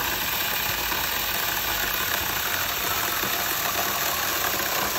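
KY255 cordless mini pruning chainsaw with a brushless motor cutting steadily through a thick log, its chain running under load through the wood.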